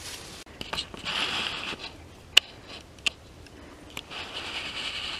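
Footsteps pushing through dry grass and brush, rustling in bursts, with two sharp clicks less than a second apart near the middle, the first one louder.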